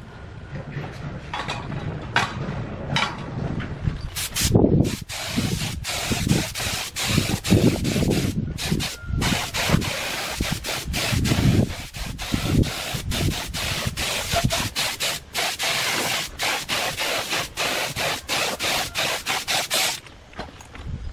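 Air spray gun hissing as it sprays paint, in many short bursts as the trigger is pulled and released, from about four seconds in until shortly before the end.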